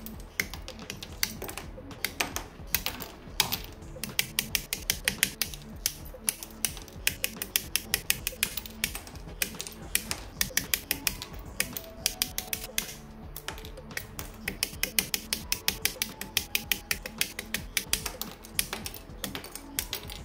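Background music under rapid, irregular clicking and snapping of plastic model-kit parts being cut from the runners and pressed together, several clicks a second.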